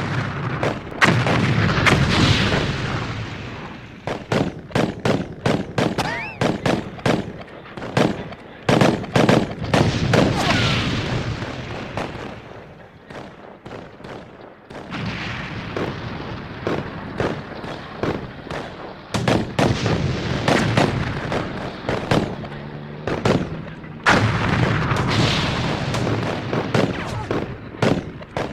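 Battle soundscape: dense, irregular gunfire, single shots and quick runs of shots, over rumbling booms of artillery and explosions.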